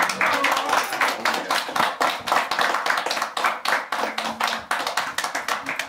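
A small group of people clapping, with the separate claps distinct rather than a smooth roar of applause.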